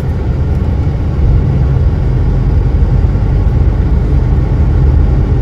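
Lorry engine and road noise heard inside the cab while driving at speed: a steady low rumble that rises a little about a second in.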